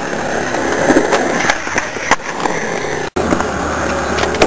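Skateboard wheels rolling on concrete with a steady rumble and a couple of sharp clacks, broken by a brief dropout about three seconds in.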